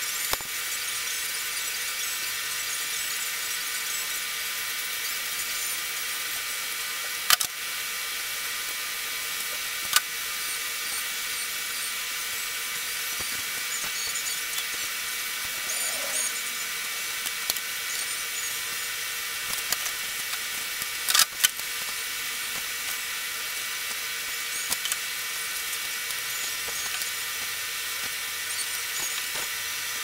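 A steady high-pitched hiss with faint whining tones, broken by a few sharp clicks of pliers and hand tools working on wiring. The loudest click comes about a quarter of the way in, and a quick double click about two-thirds in.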